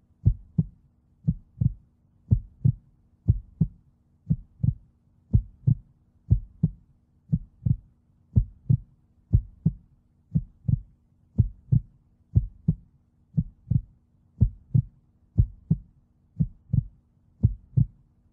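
Heartbeat sound effect: steady paired lub-dub thumps, about one beat a second.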